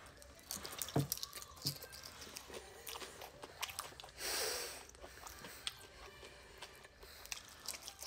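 Close-up chewing of a mouthful of food, with wet mouth sounds and many small scattered clicks, and one short hiss about halfway through.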